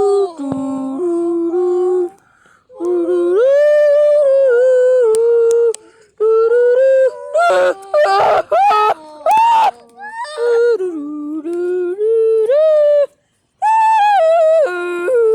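A child humming and singing a wordless 'do do do' tune, in long held and sliding notes with short pauses between phrases.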